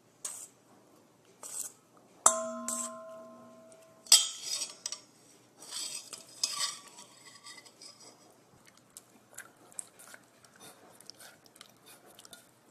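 A utensil clinking and stirring in a bowl while slime ingredients are mixed. One strike about two seconds in rings for about a second and a half, then comes scraping and stirring, then light taps.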